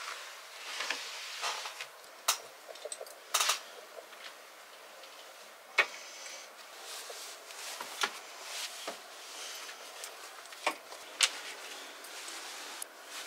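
Household items being handled and put away: scattered sharp light clicks and knocks, one or two every second or so, with soft rustling in between.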